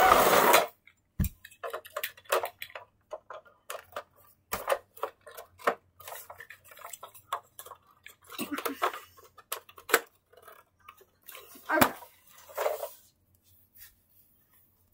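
Irregular small clicks, taps and rustles of things being handled and shifted about, with a few sharper knocks around the middle and near the end. A loud noise cuts off within the first second.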